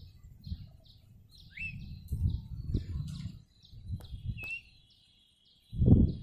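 Birds chirping: a short high chirp repeats about twice a second, with a couple of sliding calls and a thin steady high tone joining about four seconds in. Under them a low rumble comes and goes and swells loudest near the end.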